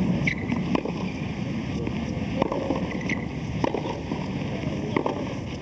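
Tennis balls being struck at irregular intervals, about half a second to a second and a half apart, some knocks followed by short high squeaks, over a steady hiss.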